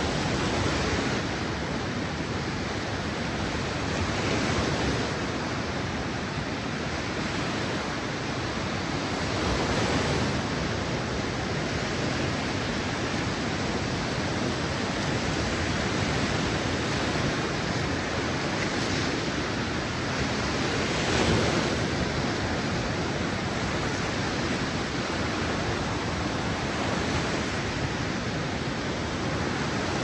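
Small waves breaking and washing up onto a sandy beach: a steady rush of surf that swells in loudness every few seconds.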